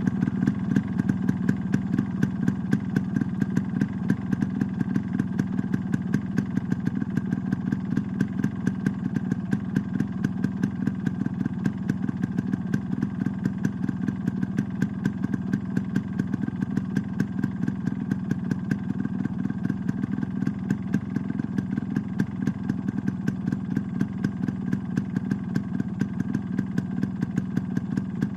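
Yamaha RX100's air-cooled single-cylinder two-stroke engine on its stock exhaust, running steadily at idle with an even, rapid pulsing beat.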